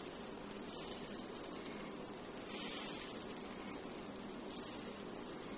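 Dosa batter sizzling softly on a hot nonstick frying pan as it is spread in circles with the back of a steel ladle; the sizzle and scrape swell briefly about two and a half seconds in.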